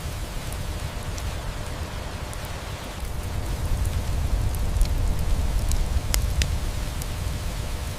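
Steady rain hiss with a low rumble underneath, and a wood fire crackling with a few sharp, scattered pops.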